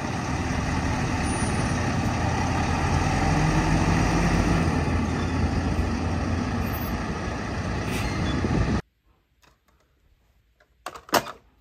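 Diesel engine of a semi-truck pulling a curtainsider trailer, running steadily as the rig drives slowly away. The engine noise cuts off abruptly about nine seconds in, and a few light clicks of a toy being handled follow near the end.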